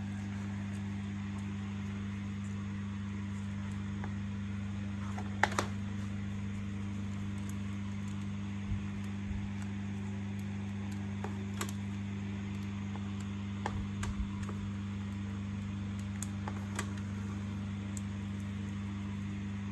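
Steady low electrical hum with a few scattered small clicks and taps, the loudest a quick double click about five seconds in.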